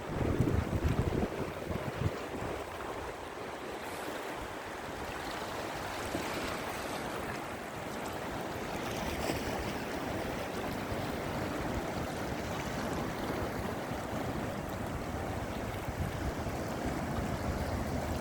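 Sea surf washing steadily on the shore, with wind buffeting the microphone in the first couple of seconds and again near the end.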